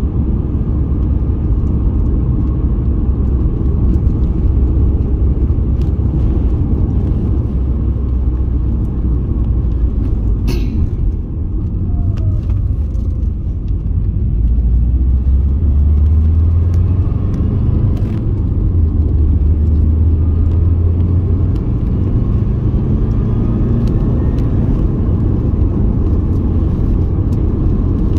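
Car driving on the road: a steady, loud low rumble of engine and road noise, with a brief sharp click about ten seconds in.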